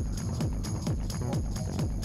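Electronic background music with a steady beat and repeated falling bass notes.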